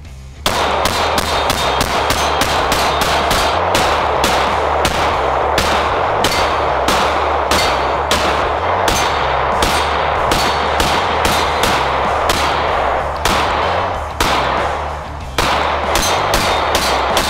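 Rapid strings of 9 mm pistol shots from a SAR USA SAR9 striker-fired pistol, about three or four a second. The firing thins out for a couple of seconds about 13 seconds in, then picks up again.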